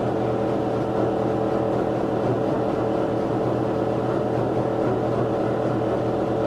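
LG front-loading washing machine running with a steady hum of several pitches held together. The noise comes from the shipping bolts left in the back, which keep the drum locked to the cabinet.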